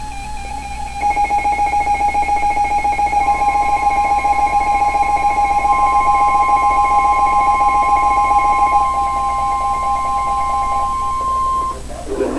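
A loud, steady electronic tone near 1050 Hz, the NOAA Weather Radio warning alarm tone, comes in about three seconds in and cuts off shortly before the end. It sounds over a pulsing electronic buzz with other steady tones that starts about a second in.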